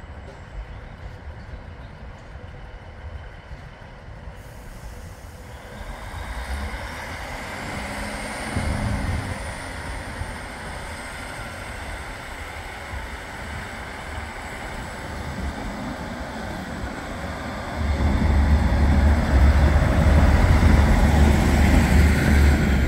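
Northern Rail Class 156 diesel multiple unit pulling out and passing close by, its underfloor diesel engines running under power. A high whine rises about six seconds in and then holds. The low diesel rumble gets much louder near the end as the cars pass alongside.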